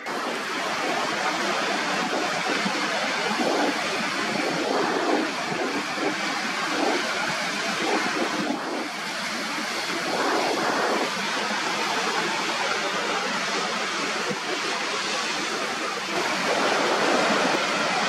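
Sea water washing over the rocks, a steady rushing with louder surges now and then and a swell near the end.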